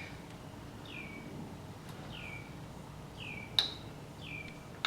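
A bird chirping steadily: one short, falling chirp about once a second. Two sharp clicks stand out, one about three and a half seconds in and one near the end.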